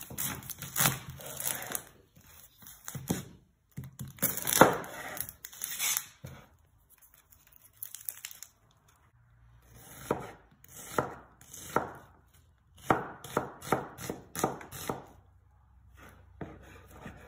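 Chef's knife cutting an onion on a wooden chopping board: irregular knocks of the blade through the onion onto the wood, with a quieter pause, then a quicker run of chops at about four a second two-thirds of the way through.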